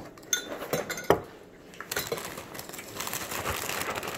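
Spoons clinking against cereal bowls as people eat cereal with milk: a few sharp clinks in the first second or so, then quieter scraping and rustling.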